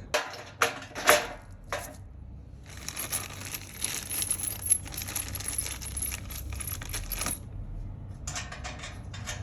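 Small steel rack hardware clinking and rattling: a few sharp metallic clicks, then about four and a half seconds of dense jingling with a high ringing, then more quick clicks near the end.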